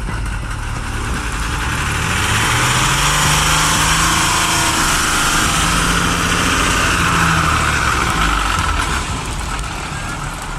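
A large vehicle's engine working under load. Its note climbs a couple of seconds in, and a loud noisy rush swells through the middle and eases off near the end.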